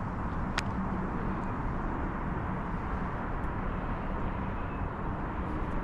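Steady low outdoor rumble with a faint hum, and a single faint click about half a second in.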